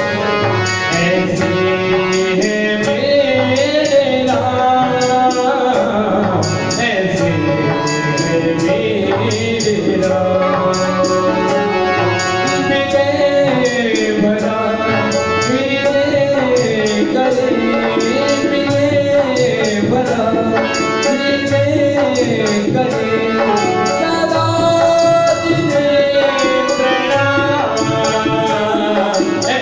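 A man singing a Hindi devotional bhajan into a microphone over a steady tabla beat.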